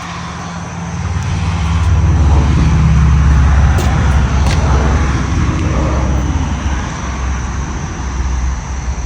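A low engine drone that swells to its loudest about three seconds in and then slowly eases off, with a couple of faint ticks in the middle.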